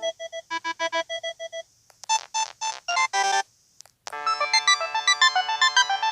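LG 630 (PD6335) mobile phone playing its built-in electronic tones through its speaker: a beeping melody of short repeated notes, a brief pause, a few quick chirping notes, and about four seconds in a fuller multi-voice ringtone melody begins.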